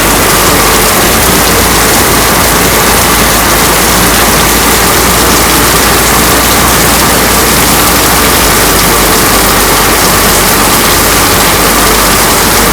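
Heavy rain pouring down, a loud, steady hiss that does not let up.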